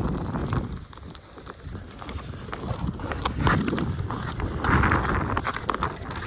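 Ice skates scraping across pond ice, with sharp clacks of hockey sticks and pucks hitting the ice and each other. A longer, denser scrape comes about five seconds in.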